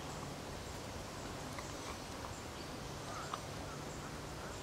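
Faint, steady outdoor background noise with a few brief, high chirps, and a single light click a little past three seconds in.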